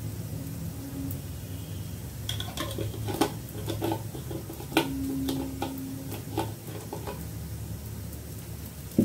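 Glass spice jar and spoon being handled: scattered light clinks and knocks, the sharpest near the end, over a steady low hum.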